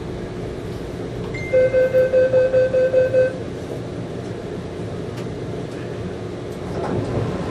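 Metro door-closing warning beeper on a Taipei Metro Wenhu line train: a short high tone, then a rapid beeping of about five beeps a second for nearly two seconds, over the steady hum of the stopped train.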